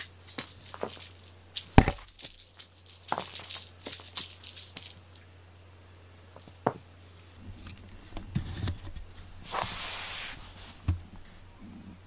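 A cat playing with a ribbon wand toy on a foam mat floor: scattered rustles, taps and paw thumps, with one sharp thump about two seconds in and a burst of rustling near the end. A low steady hum runs underneath.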